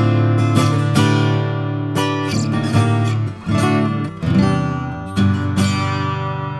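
Strummed guitar chords, likely acoustic, playing through the Neold U2A opto compressor plugin as a demo loop, with a fresh chord strike every half second to a second.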